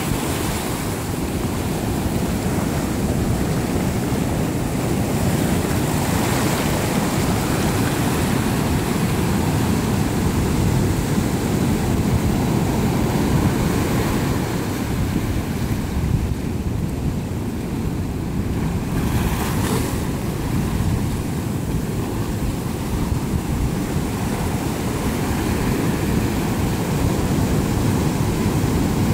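Ocean surf breaking and foaming seawater washing in and out around rocks at the water's edge, a continuous rushing with a heavy low rumble of wind buffeting the microphone.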